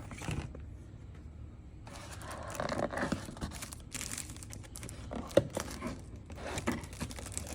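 Car speaker packaging being torn open and handled: crinkling and tearing begin about two seconds in, with a few sharp knocks.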